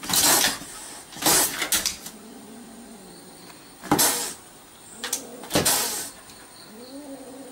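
A cat hissing at a dog, four sharp hisses a second or more apart, then a low growling yowl starting near the end.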